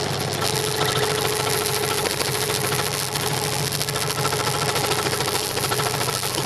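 Scroll saw running steadily, its blade stroking rapidly up and down as it cuts a wooden board, with a constant hum.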